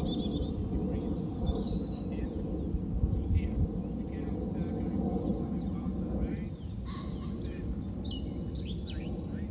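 Outdoor background: a steady low rumble, with small birds chirping briefly about a second in and again near the end.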